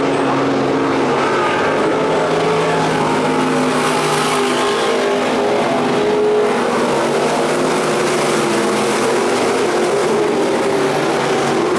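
A pack of dirt-track stock cars racing, several engines running hard at once in a steady, loud din, their overlapping notes shifting in pitch as the cars go around.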